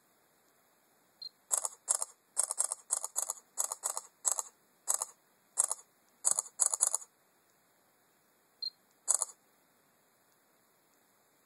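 Samsung Galaxy Note 2's camera shutter sound from its speaker, a rapid run of about fifteen shutter clicks over some six seconds, then after a pause a single shot. A short high beep comes just before the first click and again before the last.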